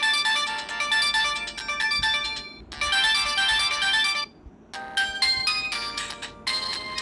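Samsung GT-E1150 mobile phone ringtone: a melody of quick electronic notes. It breaks off briefly a little past four seconds, then a melody in a different pattern starts.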